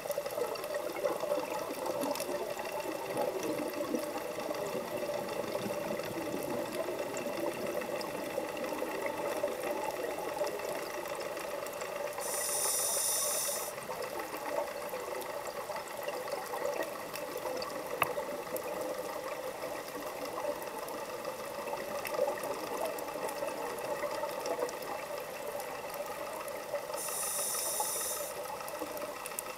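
Underwater sound heard by a scuba diver: a steady background hum with faint scattered clicks, broken twice, about 12 and 27 seconds in, by a hissing, bubbling burst of about a second and a half as the diver's regulator vents an exhaled breath.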